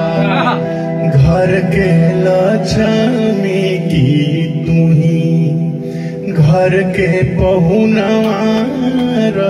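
Music: a man singing a rustic Bhojpuri wedding song into a handheld microphone over a steady accompaniment of held notes.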